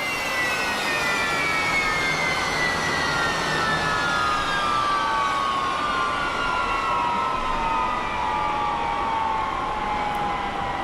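Turbine whine of an unlimited hydroplane's gas turbine engine, heard onboard, falling slowly and steadily in pitch as the engine winds down and the boat slows, over a constant rushing noise.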